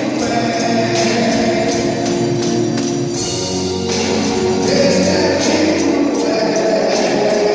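Congregational hymn singing led by a lead singer, accompanied by an electronic keyboard and a tambourine jingling in a steady beat.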